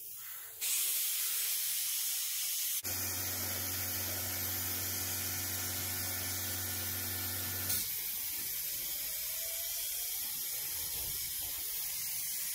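Gravity-feed paint spray gun hissing steadily as it sprays a thin coat of heavily thinned top-coat paint, starting about half a second in. A steady low hum joins for about five seconds in the middle.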